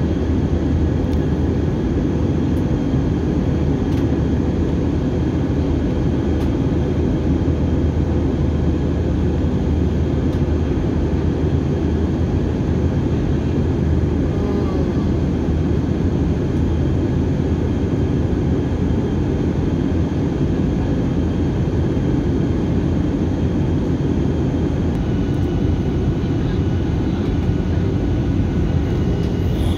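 Airliner cabin noise during the landing approach: a steady low rush of engines and airflow, with faint steady whines above it.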